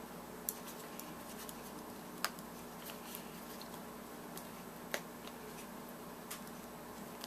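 Handling noise from a David Clark Model 310 earmuff as a replacement ear cushion is worked onto its plastic cup: a few sharp, irregular clicks and taps over a faint steady hum.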